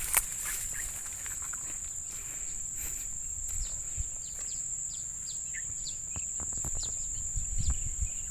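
Steady high-pitched insect trill, typical of crickets, with a string of short, quick falling chirps from a small bird through the middle seconds. A sharp click comes just after the start and a few low bumps near the end.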